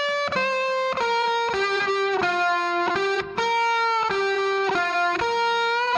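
Background music: a lead guitar plays a slow melody of single sustained notes, about two a second, some sliding into the next.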